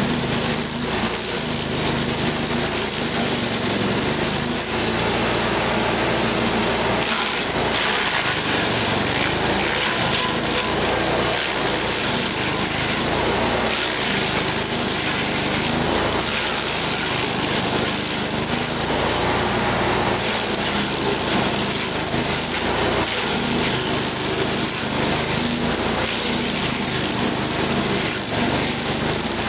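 LASKI F500H stump grinder running steadily under load, its toothed cutter wheel grinding into an ash stump and throwing wood chips. The engine's steady drone is mixed with the noise of the wheel chipping the wood.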